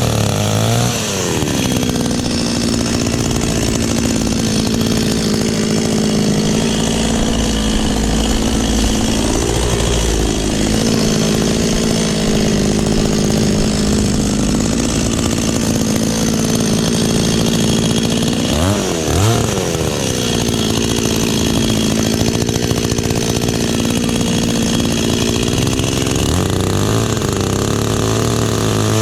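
Kyoritsu two-stroke chainsaw revving up from idle about a second in and running at high speed, its pitch briefly shifting twice, then dropping back to idle near the end.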